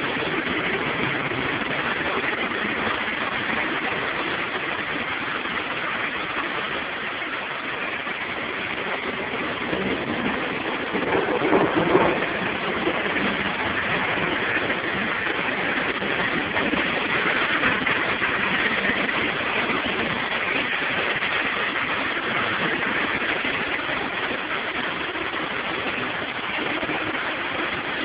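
Heavy rain falling in a steady hiss, with a brief louder swell about twelve seconds in.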